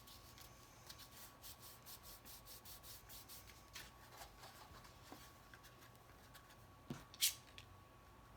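Faint rustling and rubbing of folded cardstock being handled and pressed together, with a run of soft ticks and one sharp tap about seven seconds in.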